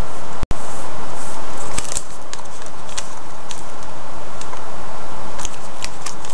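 Small handling noises: scattered short clicks and crackles over a steady hiss, with a brief cut-out about half a second in.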